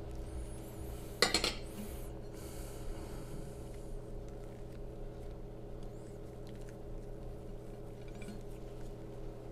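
A metal spoon clinks once, sharply, against a ceramic plate about a second in, followed by faint soft handling as a filled crepe is rolled up by hand, over a steady low hum.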